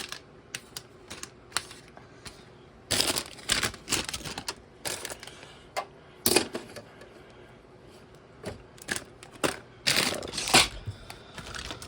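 Plastic building-brick parts and their packaging being handled: scattered light clicks and a few short rustles.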